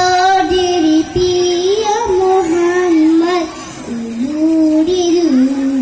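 A young girl singing solo into a microphone: held notes that slide from pitch to pitch, with a short breath pause about three and a half seconds in.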